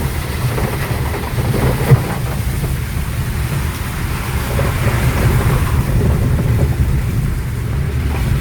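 Maruti Suzuki WagonR on the move: a steady low rumble of engine and tyre noise, with one sharp knock about two seconds in.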